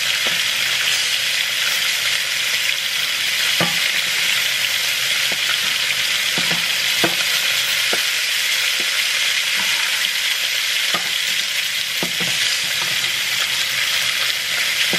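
Hot oil sizzling steadily in a skillet where chicken thighs have been frying. Light clicks of metal tongs come now and then as the pieces are lifted out onto a plate.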